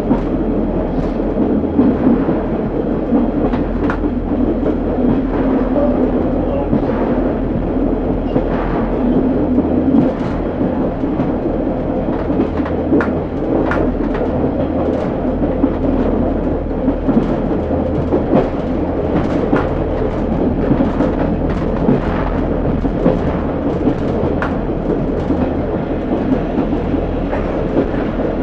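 Class 142 Pacer railbus on the move: a steady rumble with frequent short, irregular clicks and knocks throughout.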